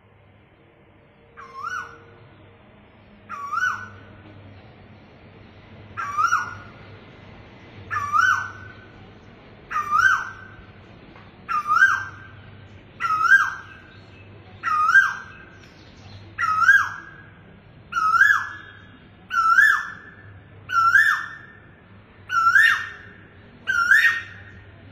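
Male Asian koel calling, a repeated two-part call given about fourteen times, each call higher, louder and a little closer to the last as the series builds.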